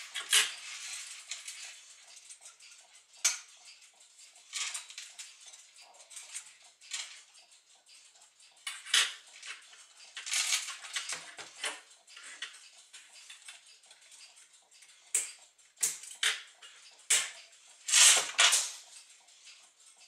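Brass parts of a Gustav Becker clock movement clinking and clattering as the movement is taken apart by hand, with levers and steel arbors lifted off and set down on the bench. The clinks come singly and irregularly, with a cluster of louder ones in the last few seconds.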